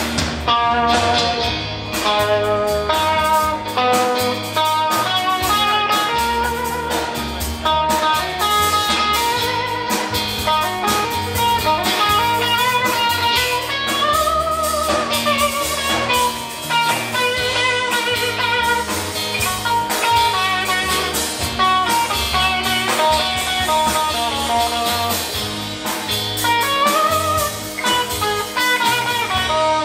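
A rock band playing live, heard from the audience: electric guitars over bass and drums, with a guitar line that bends in pitch.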